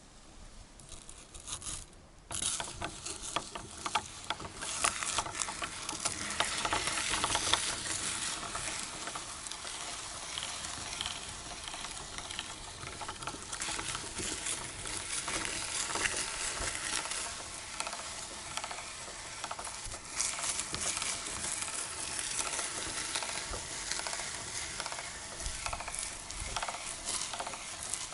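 Meat grinder crushing and pushing through crisp waffles: a dense, steady crunching and crackling full of small clicks, starting about two seconds in.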